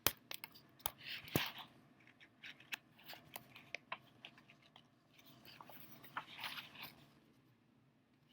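Faint rustling and irregular clicks of a paper picture book being handled, its pages turned, with a denser patch of rustling about a second in and again near the end.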